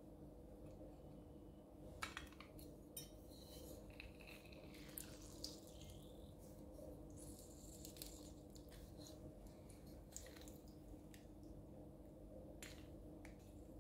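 Lemon half pressed in a hinged stainless-steel hand-held lemon squeezer: faint scattered metal clicks and clinks as the handles are worked, with squishing and juice dripping into a cup.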